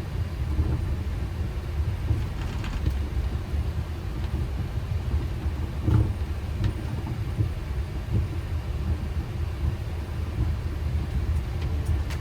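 Boeing 737 flight deck noise during taxi: a steady low rumble from the idling engines and the aircraft rolling along the taxiway, with one short knock about six seconds in.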